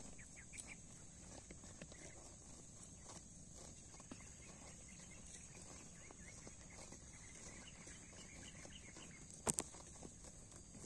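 Village cattle grazing, tearing and chewing grass in small faint crunches, over a steady high hiss. One sharp click about nine and a half seconds in is the loudest sound.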